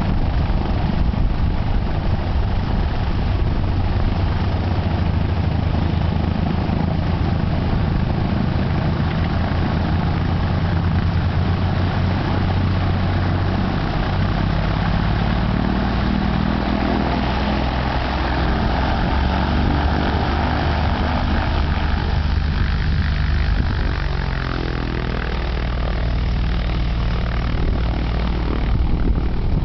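Light single-engine tow plane's piston engine and propeller running at low power, a steady engine note whose pitch shifts up and down about halfway through.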